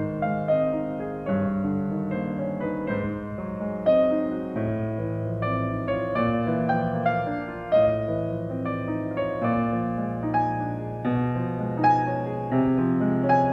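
Background piano music: a steady run of notes and chords, each struck and held.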